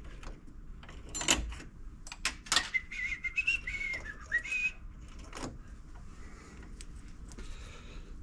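Small metal tools clicking and clinking as they are handled at a pegboard, with a few sharp clicks. About three seconds in, a man whistles a few wavering notes for about two seconds.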